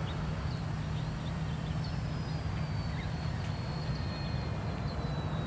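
A brushless electric motor on a small RC plane gives a faint high whine that slides slowly down in pitch as the plane comes in to land, over a steady low rumble.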